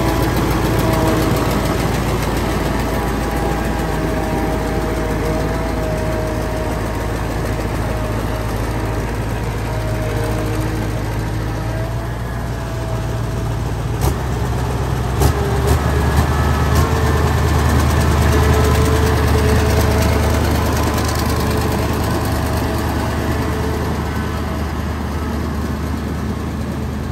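Hino F21C naturally aspirated V8 diesel engine of a tracked paddy-tilling machine running steadily. About halfway through there are two short clicks, after which its low hum grows stronger and a little louder.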